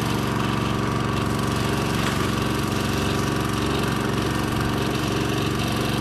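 Small engine on a pile-driving barge running steadily, with no hammer blows.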